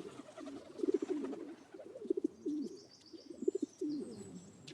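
Pigeons cooing: several low, pulsing, warbling coos in succession, overlapping one another.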